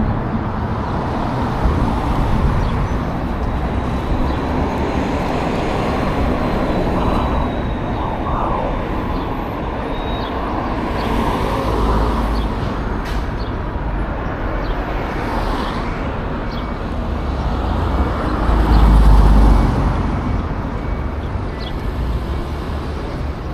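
Steady city street traffic noise, with a louder low rumble swelling about three-quarters of the way through.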